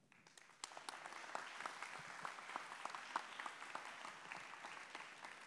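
Audience applauding: a spread of many hand claps that starts about half a second in and thins out near the end.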